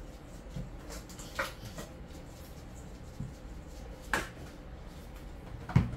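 Quiet kitchen handling sounds: a few short taps and clicks as a seasoning shaker bottle is shaken over raw chicken in a stainless steel bowl, the loudest a knock with a low thump near the end.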